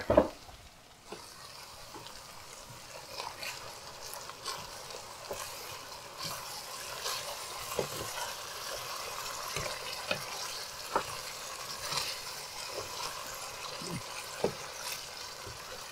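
Wooden spoon stirring and scraping ground beef, onion and tomato paste in a pot on the heat, the mixture sizzling, with small knocks of the spoon against the pot. Near the end, water is poured in.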